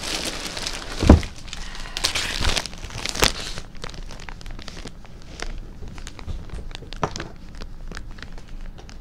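Clear plastic wrapping around felt bag organizers crinkling and crackling as they are handled and lifted out of a cardboard box, with one dull thump about a second in. The crinkling is dense at first, then thins to scattered crackles.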